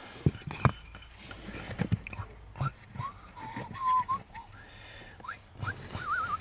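A few light clicks and knocks of a plastic wiring connector being handled at the accelerator pedal. Then a person whistles short, wavering notes in the second half.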